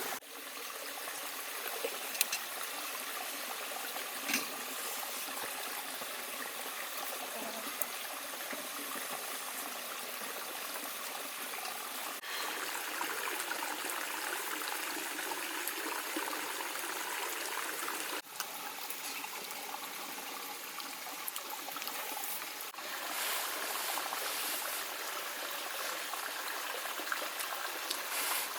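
Steady running, trickling water, as of a small stream, with a couple of faint clicks about two and four seconds in. The sound dips briefly and resumes about twelve, eighteen and twenty-three seconds in.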